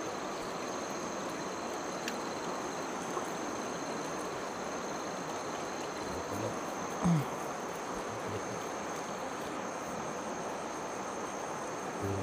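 Steady rush of shallow river water flowing, with a thin, high, continuous insect drone above it. A short low sound stands out briefly about seven seconds in.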